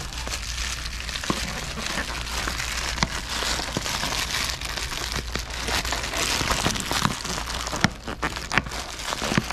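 Plastic poly mailer packages crinkling and rustling as they are pulled and worked out of a tightly packed metal post office box, with many sharp crackles throughout.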